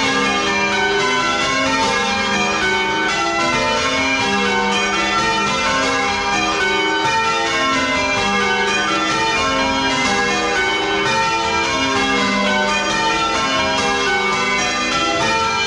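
Church bells being change rung, swung full circle and struck in steady rapid succession at several pitches, their tones overlapping. The ring has a 10 cwt tenor, and it is heard from inside the belfry, right beside the swinging bells.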